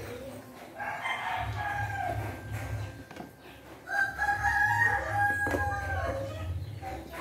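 A rooster crowing twice, the second crow louder and longer, held steady before dropping off at the end.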